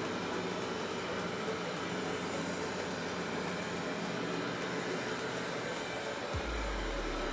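Narwal T10 robot vacuum running steadily as it vacuums a hard floor. A deep rumble comes in near the end.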